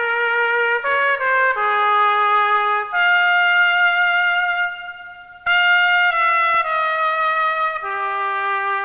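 Solo trumpet playing a slow melody of held notes, one at a time, with a short break about five seconds in.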